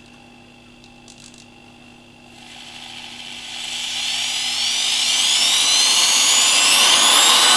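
Tekhmann TLD-13/1260 low-speed corded electric drill running slowly and quietly at first. About two seconds in it speeds up, and its whine rises steadily in pitch and loudness. The loud rushing part of the sound is the motor's cooling-fan air, not the gearbox.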